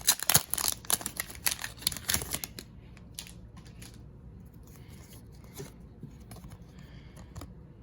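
Foil booster pack wrapper crinkling and tearing open, with dense crackling for the first two seconds or so, then quieter rustling and light clicks as the cards are handled.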